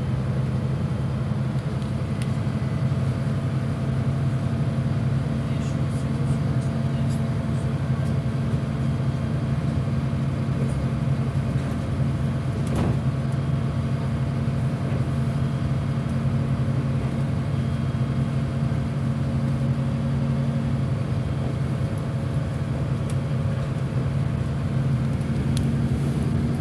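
Airport passenger bus running at a steady low hum, heard from inside its cabin as it drives across the apron. There is one brief knock about halfway through.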